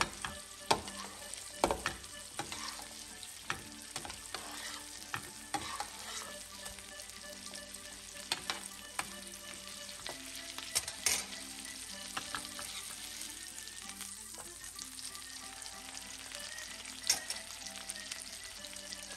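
Steak sizzling steadily in hot oil and melted butter in a frying pan while it is basted, with a metal spoon clicking and scraping against the pan at irregular moments as the fat is spooned over the meat.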